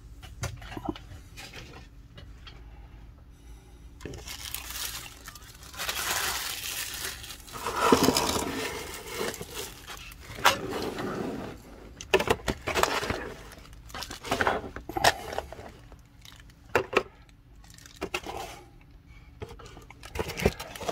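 Packaging and kit parts being handled on a desk: a stretch of rustling, then scattered sharp clicks and knocks as the plastic accessory box, power adapter and rotary tool are picked up and set down. The rotary tool is not running.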